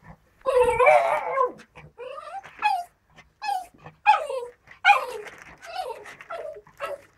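Norfolk terrier giving a string of excited whining cries in greeting, short pitched calls that mostly slide down in pitch, with a longer wavering cry about a second in.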